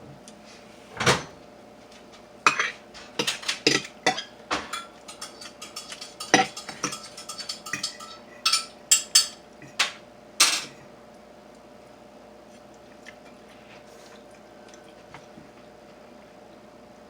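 Dishes and cutlery clattering: a run of sharp clinks and knocks over the first ten seconds or so, some ringing briefly. Then only a faint steady hum remains.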